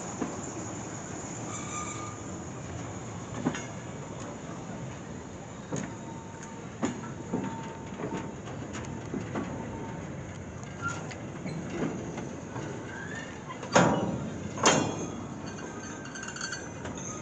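Goods wagons rolling slowly past on the rails while being shunted: a steady rumble of wheels with irregular clanks and knocks, two louder knocks coming close together near the end.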